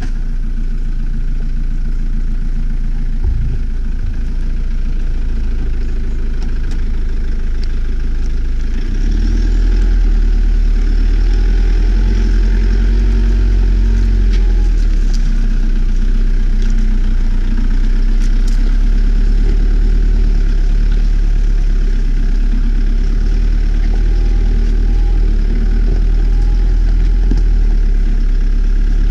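Toyota Hilux pickup's engine running at low revs as the truck crawls over a rough gravel track, picked up by a microphone mounted low on the outside of the body beside the front wheel. There is a steady low rumble, a single knock about three seconds in, and scattered small clicks from stones under the tyres.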